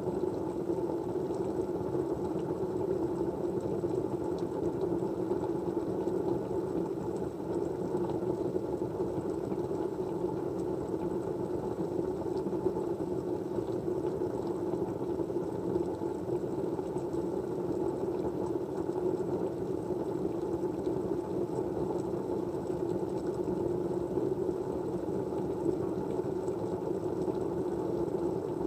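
Steady, even background noise with a low hum to it, the kind of white-noise ambience laid under study-along videos.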